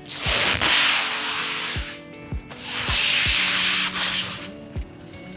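Two loud bursts of rushing hiss, each about two seconds long, starting and stopping abruptly, over background music with a steady low beat.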